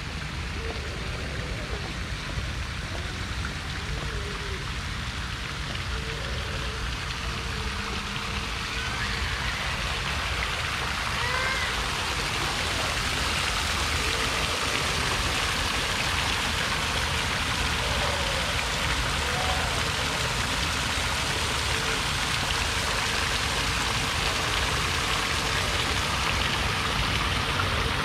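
A steady rushing outdoor noise, getting louder about ten seconds in, with a few faint short chirps over it.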